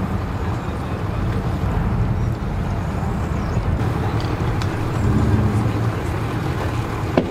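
Steady low rumble of idling boat engines, with faint voices and a sharp click near the end.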